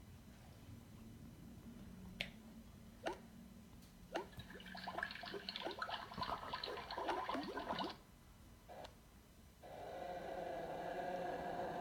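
Sound effects played back one after another: a few clicks, then about three seconds of rapid water dripping and bubbling, and after a short pause a steady droning tone with several pitches.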